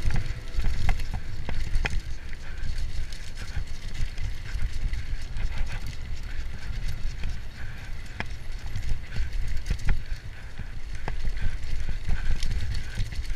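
Mountain bike rattling and knocking over a rough downhill trail, with irregular sharp clacks over a heavy low rumble.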